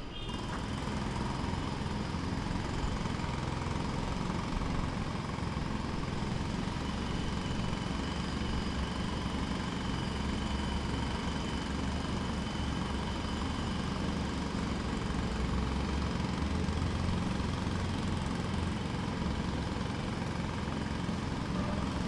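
Pneumatic jackhammer breaking concrete, hammering rapidly and continuously at a steady level.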